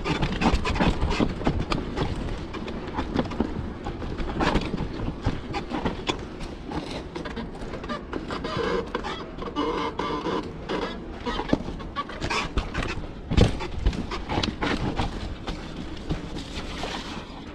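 Cube Stereo 120 Race 29 full-suspension mountain bike riding down rough dirt singletrack: tyres rolling over dirt and roots with a constant, irregular rattle and knocking from the bike, and one heavy knock about thirteen seconds in.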